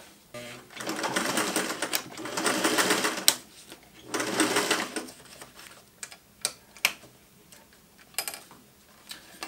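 Singer 503A Rocketeer sewing machine top-stitching through fabric in two runs: a fast run of about two and a half seconds, then a shorter one of about a second. After that come a few separate sharp clicks.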